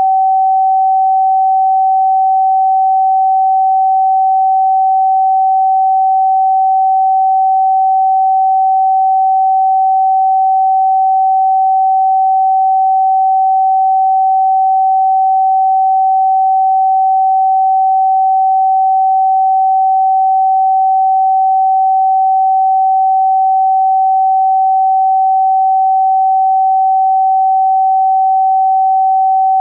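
A pure sine tone held steady at about 764 Hz, the G (Sol) note of a 432 Hz-based scale.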